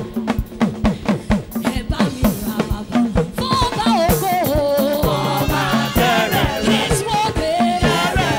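Live gospel band music led by a drum kit playing a steady, busy beat over a bass line; singing comes in about three seconds in and carries a melody over the drums.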